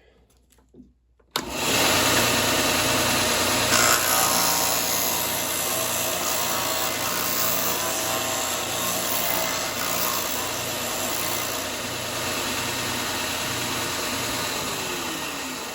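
Wen benchtop belt and disc sander switched on about a second in, its motor starting abruptly and running steadily with a sanding hiss as wood is fed against it. Near the end the motor's pitch falls as it starts to wind down.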